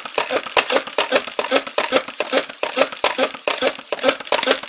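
Buzzbee Air Max 10 dart blaster being pumped quickly by hand: a fast, even run of pump strokes at about four to five a second, pressurising its air tank for the next shot.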